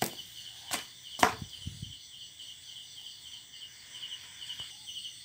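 Crickets chirping steadily in a fast pulsing rhythm, with three sharp knocks in the first second and a half, the one a little past a second in the loudest.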